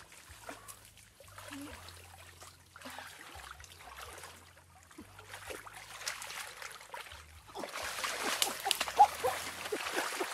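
Hands sloshing and splashing in shallow muddy water, groping through the mud for fish. Quiet and sparse at first, then louder and busier splashing from about three-quarters of the way through.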